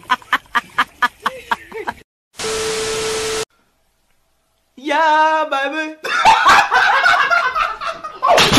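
Rapid, repeated bursts of laughter. After them comes about a second of hiss with a steady tone through it, then a short silence, then loud voices.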